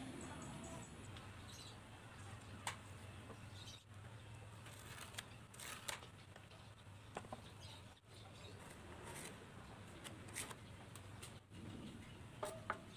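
Faint, scattered handling sounds: a pencil scratching on a wooden board and a few light knocks as objects are set down on it, over a steady low hum.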